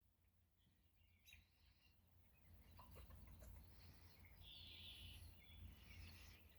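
Faint bird chirps and calls, scattered and getting a little louder after about three seconds, over a low steady rumble.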